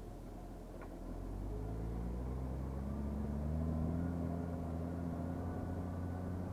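New Holland T7050 tractor's six-cylinder diesel engine running, its pitch rising over about two seconds and then holding steady, with a low rumble underneath.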